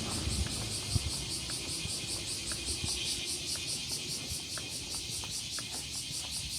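Chorus of insects, crickets or cicadas, trilling high and pulsing rapidly and evenly, over a faint low rumble.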